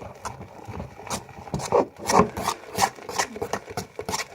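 A spoon scraping and stirring thickening homemade slime (glue, shaving foam and borax water) in a plate, in irregular rasping strokes.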